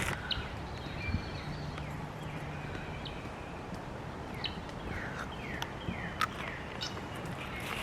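Birds calling outdoors: a series of short downslurred calls and brief high chirps, clustered mostly in the second half, over steady background noise, with a faint low hum about one to three seconds in.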